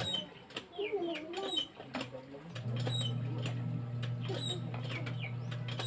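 Birds chirping and calling in short, repeated sweeping notes. A steady low hum comes in about two and a half seconds in.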